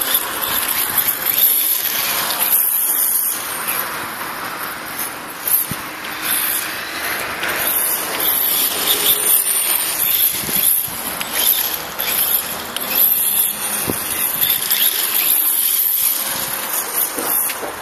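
Electric motor and drivetrain of an HSP Brontosaurus Pro brushless radio-controlled truck running as it drives across grass, the sound swelling and dipping with the throttle over a steady high hiss.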